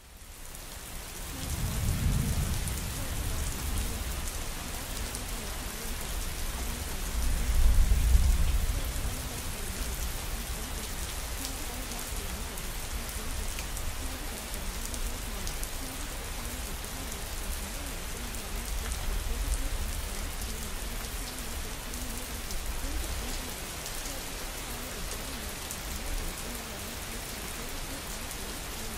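Steady rain falling, fading in at the start, with deep rumbles swelling about two seconds in and again, loudest, around eight seconds in, and a few weaker ones later.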